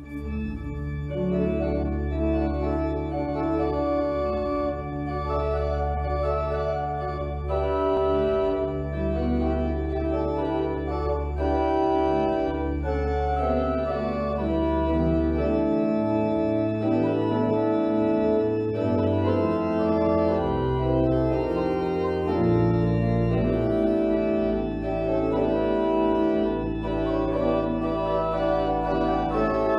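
Organ playing sustained full chords over held bass notes. A single low pedal note is held for about the first fifteen seconds, then the bass moves from note to note.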